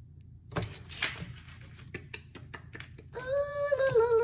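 A run of small clicks and taps, then about three seconds in a woman's voice holding a long, steady note.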